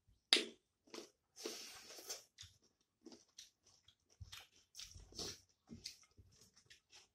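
Close-up eating sounds: irregular wet lip smacks and mouth clicks of chewing, the sharpest about a third of a second in, with fingers squishing rice and gravy on steel plates.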